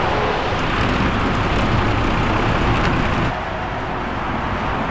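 Steady roar of motorway traffic passing close by, dipping slightly about three seconds in.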